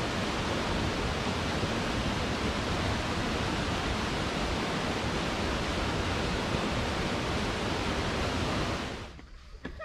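A steady, even rushing noise with no tones in it, cutting off abruptly near the end.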